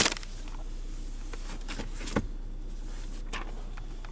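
Newspaper being handled: a burst of paper rustling right at the start, then a few scattered soft rustles and taps over a steady low hum.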